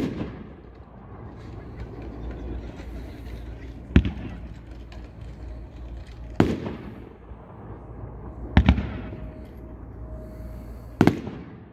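Brothers Pyrotechnics 'Whacky Tobacky' NOAB fireworks cake firing shell by shell: five sharp bangs of aerial bursts spaced two to four seconds apart, the last two doubled, each trailing off in an echo.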